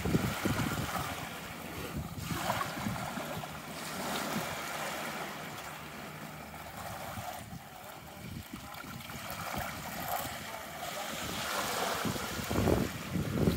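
Small waves washing onto a beach, a steady hiss, with wind gusting on the microphone at the start and again near the end.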